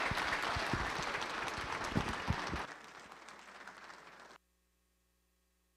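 Audience applauding, thinning out about three seconds in and then cutting off suddenly.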